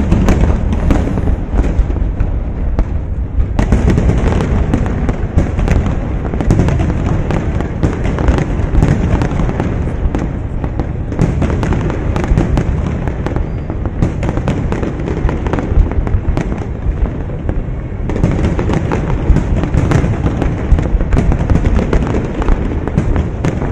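Large aerial fireworks display: a dense, continuous barrage of overlapping bangs and booms from many shells bursting in rapid succession.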